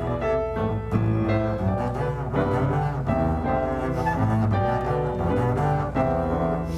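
Instrumental music: a slow succession of sustained notes and chords over a continuous low bass line.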